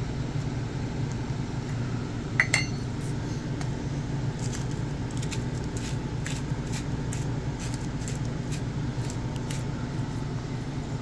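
Hand-twisted salt grinder crunching sea salt over a bowl, a run of small irregular clicks, after a sharper clink about two and a half seconds in. A steady low hum runs underneath.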